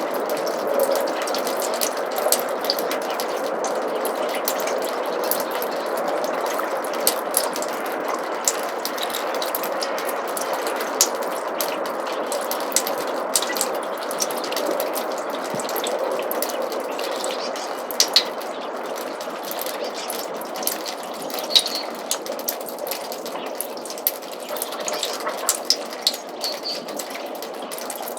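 Snowmelt trickling steadily through a roof gutter, with a constant run of quick drips and splashes on top. A few faint bird chirps come in, mostly in the later part.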